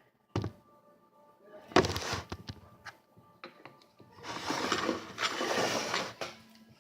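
Handling noises from slime making over faint background music: a single knock about half a second in, a burst of clicks and crackle near two seconds, then about two seconds of dense, wet-sounding noise from about four seconds in.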